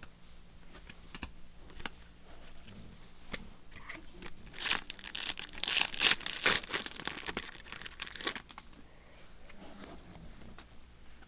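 Foil booster-pack wrapper being torn and crinkled, in a dense run of crackling through the middle, loudest about six seconds in. Light clicks and rustles of trading cards being handled come before and after it.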